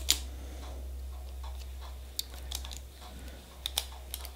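Scattered sharp clicks and taps of small nail-stamping tools being handled on a tabletop, a few close together near the end, over a low steady hum.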